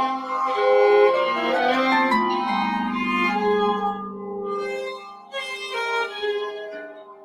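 Small chamber ensemble improvising from a graphic score: bowed violin lines over a long held lower note. It grows quieter over the last couple of seconds.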